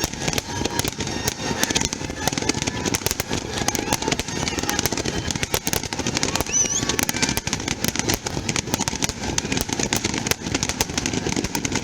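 Fireworks display: a dense, continuous crackle of many rapid pops from bursting shells, with a short rising whistle about six and a half seconds in, over a crowd's voices.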